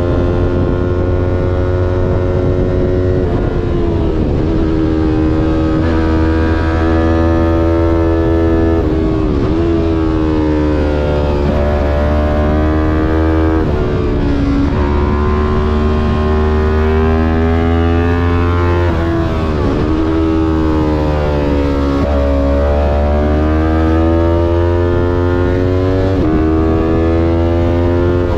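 Yamaha R3's 321 cc parallel-twin engine on track, heard onboard. It revs up through the gears, the pitch climbing and then dropping sharply at each shift. It falls away with brief blips on downshifts into corners, repeating every few seconds over a steady low rumble.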